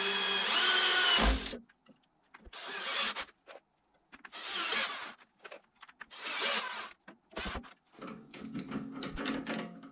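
Cordless drill-driver driving screws through a faceplate into a wooden log. A motor whine rises in pitch and stops about a second and a half in, then comes three short bursts of the drill a couple of seconds apart and a brief fourth one. Light clicking follows near the end.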